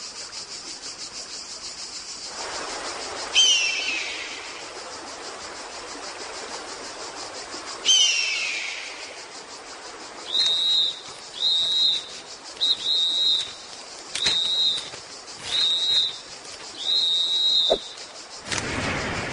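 Cartoon sound effects over a steady high hiss: two sharp descending calls about four seconds apart, then six short, high whistle-like notes, and a rushing whoosh near the end.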